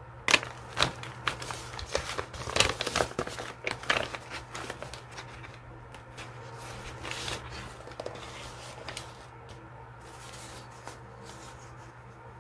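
Paper crinkling and rustling as hands dig through a soft fabric pouch of paper sticker packets and pull out sticker sheets. A cluster of sharp clicks and taps comes in the first few seconds, then the rustling goes on more softly and fades near the end.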